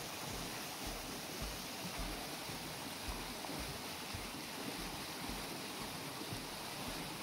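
Steady rushing of fast-flowing river water, with the paddles of a turning wooden waterwheel splashing and churning through it.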